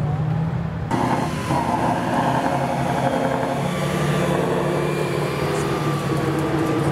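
Tatra 813 AM50 bridgelayer's air-cooled V12 diesel engine running steadily as the eight-wheeled truck drives, with an abrupt change in the sound about a second in.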